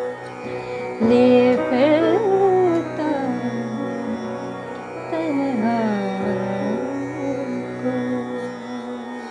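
A woman singing a ghazal, drawing out long, ornamented notes that waver and slide between pitches, over a steady instrumental drone. Her voice is loudest in the first few seconds and softer towards the end.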